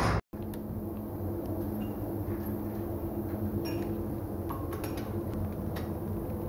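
Steady hum of workshop machinery, with two steady tones and scattered light clicks and taps. The sound drops out for a moment just after the start, at an edit.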